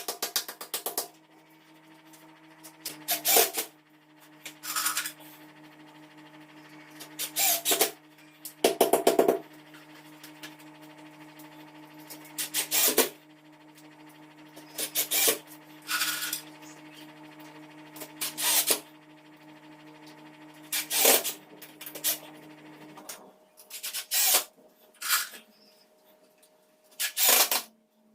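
Short rasping strokes of a hand tool working wood, about a dozen, spaced irregularly. Under them runs a steady low hum that stops shortly before the end.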